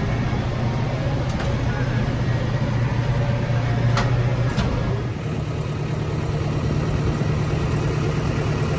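Tractor engine running steadily while pulling a hay rake through straw, its pitch shifting slightly about five seconds in. A faint click sounds about four seconds in.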